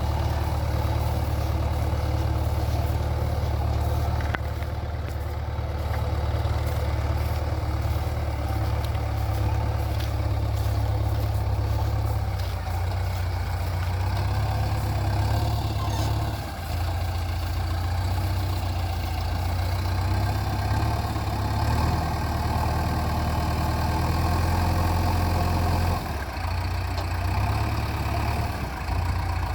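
JCB 3DX backhoe loader's diesel engine running steadily, its note dipping briefly about sixteen seconds in and again near twenty-six seconds.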